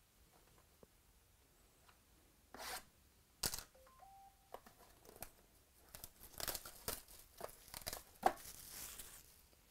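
Clear plastic shrink wrap being torn and crumpled off a sealed box of 2017 Panini Chronicles baseball cards. It starts a couple of seconds in with scattered crinkles and a sharp snap, then comes denser crinkling and a longer tearing rip near the end.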